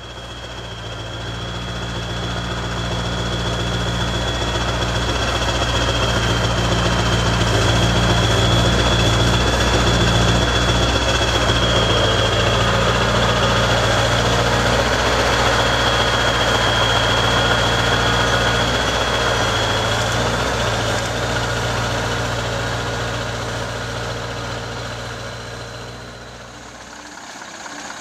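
Scania R580's 16-litre V8 diesel idling steadily through its twin exhaust tailpipes, with a thin high whine over it that drops away about two thirds of the way through. The idle swells louder over the first several seconds, holds, then fades toward the end.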